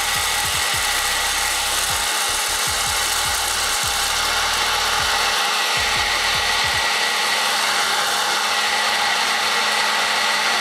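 Hot air popcorn popper running: its fan blowing a steady rush of hot air with a constant hum, while a load of green coffee beans tumbles in the roasting chamber. More beans are being added, so the tumbling is slowing down at the start of the roast.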